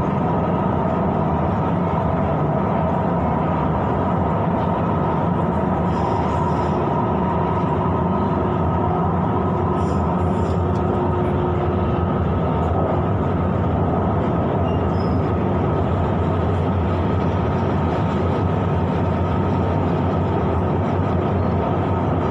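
Siemens Inspiro metro train running through a tunnel, heard from inside the front car: a steady rumble of wheels on rail with a few steady high tones over it.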